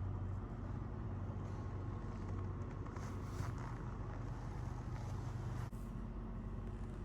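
Steady low hum of an idling engine, with a brief click and dip about three-quarters of the way through.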